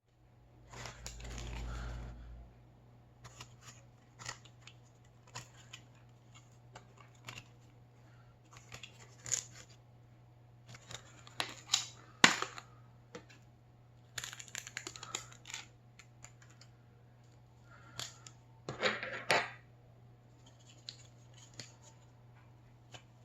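Close-miked eating sounds as a mini Japanese cheesecake is eaten: scattered small clicks and taps with a few short rustling, smacking bursts, over a steady low hum.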